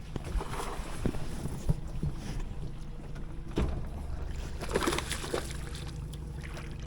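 Boat motor running steadily, with scattered knocks and splashy bursts on top, the strongest about three and a half and five seconds in.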